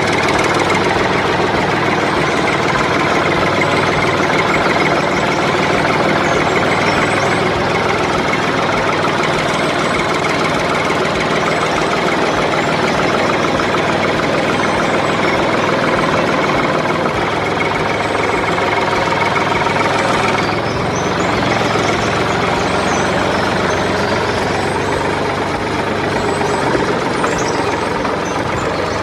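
Engine of a homemade mini bulldozer running steadily with a rattling, knocking clatter, easing off briefly about two-thirds of the way through.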